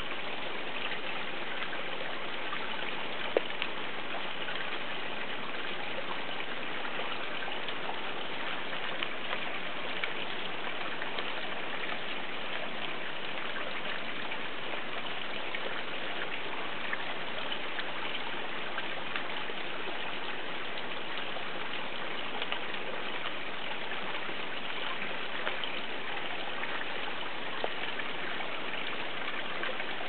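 Steady rain falling on rainforest foliage: an even hiss with scattered sharper drips, the loudest a little over three seconds in.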